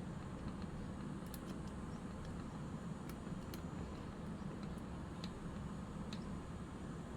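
A few faint, scattered small ticks of a screwdriver and tiny screws on a camera's metal grip as screws are taken out, over a steady low hum.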